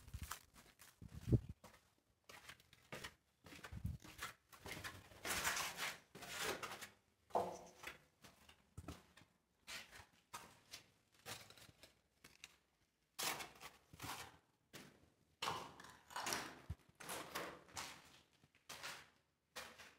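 Faint, irregular footsteps scuffing and crunching on a concrete floor strewn with rubble, inside a concrete bunker.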